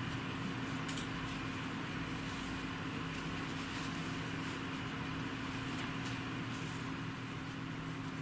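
Steady low hum with a few constant low tones under an even hiss, with a faint click about a second in.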